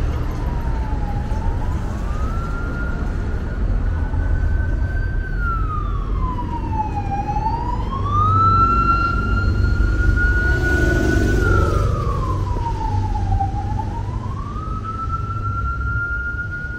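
A siren wailing slowly: its pitch climbs, holds high for a few seconds, then drops, over and over, over a steady rumble of street traffic.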